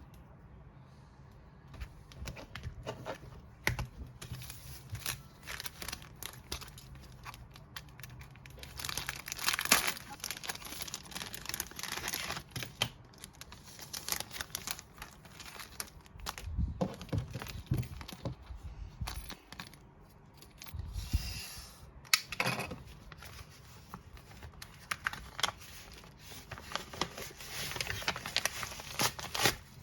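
Packaging being torn open and crinkled by hand, in irregular crackling bursts, loudest about a third of the way in and again near the end.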